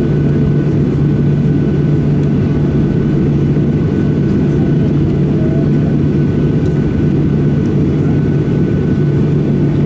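Steady cabin drone inside a Boeing 737-800 with its CFM56 engines at idle before takeoff: a strong low hum with a faint, steady high whine above it.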